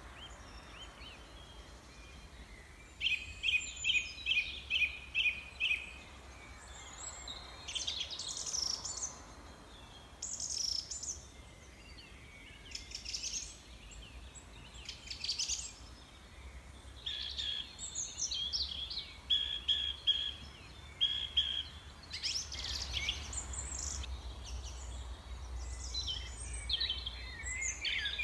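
Several small songbirds chirping and singing in turn. A quick run of about seven evenly spaced notes comes about three seconds in, and short rapid trills come later.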